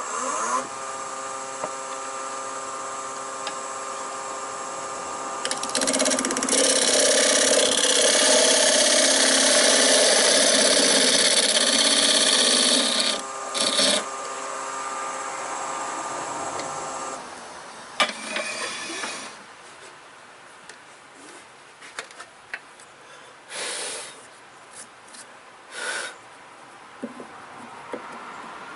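Wood lathe starting up and running with a steady whine, while a turning tool cuts noisily into the spinning pine block for about seven seconds, widening its bore to take a steel threaded insert. The lathe then winds down, and light knocks and rubbing follow as the steel insert is pushed into the hole to test the fit.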